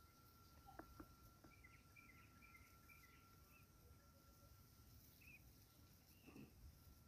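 Near silence outdoors: faint, scattered small bird chirps over a low background hiss, with a steady thin high tone and a couple of small clicks about a second in.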